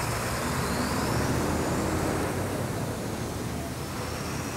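Street traffic noise: a steady rush of passing vehicles with a low engine hum underneath.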